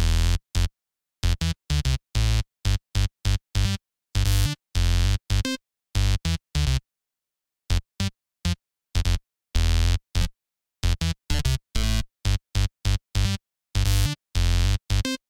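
Serum software-synthesizer bass patch playing a choppy bassline of short notes at changing pitches, deep and bright, each cut off dead into silence, with a longer rest of over a second near the middle.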